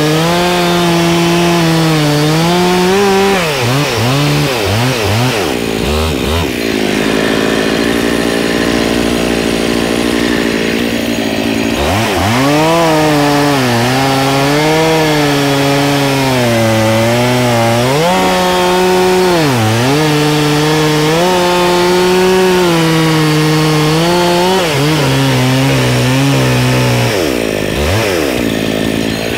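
Two-stroke gas chainsaw bucking a dry maple log into firewood rounds, its engine pitch dipping and recovering as the chain bogs and clears in the cut. For several seconds in the middle it holds a steadier, higher pitch, and near the end the revs fall away.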